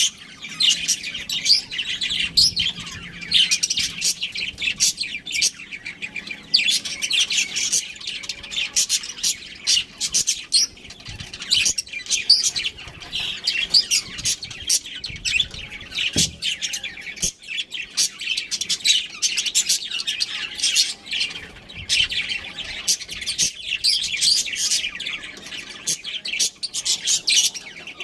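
Several budgerigars chattering, with constant rapid, overlapping high-pitched chirps.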